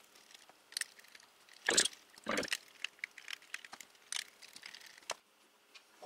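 Small screwdriver backing out the screws that hold the cord gasket in a Plantronics GameCom 780 headset's plastic earcup: scattered light clicks and handling taps, with two louder knocks about two seconds in.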